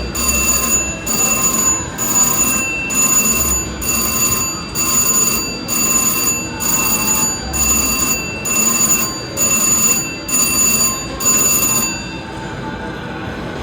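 Slot machine win bell ringing in even pulses, a bit faster than one a second, as the win pays out. It cuts off about twelve seconds in, leaving casino background noise.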